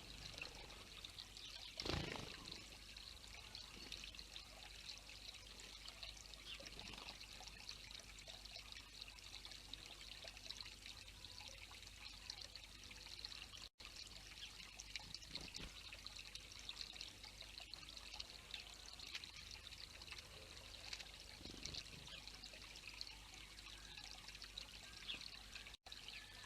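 Steady trickle of pouring water, with one louder splash about two seconds in from a bathing house sparrow. The sound cuts out for an instant twice.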